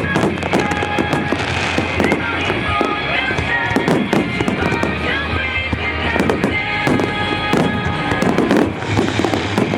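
Fireworks bursting in rapid, repeated bangs and crackles, with music playing along.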